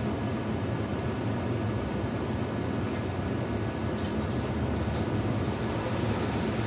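Steady low rumble of vehicles, with no distinct events.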